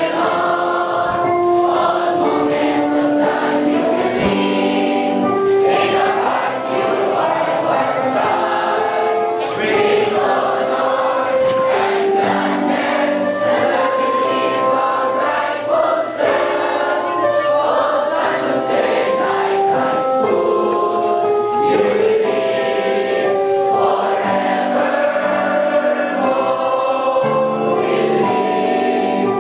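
A large group of graduating students singing their school hymn together as a choir, in a steady flow of held sung notes.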